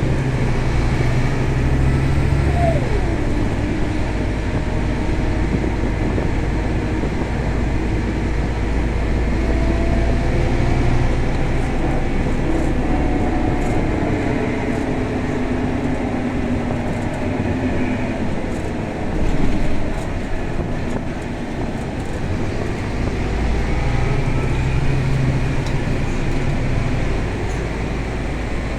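Interior of a Scania K320 bus on the move: steady engine and road rumble, the engine note rising and falling as the bus speeds up and slows, with a brief louder bump about two-thirds of the way through.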